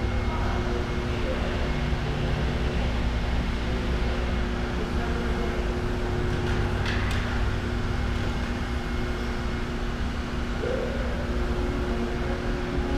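Steady low mechanical hum of a gym room, with a few steady tones in it, and one short sharp clink about seven seconds in.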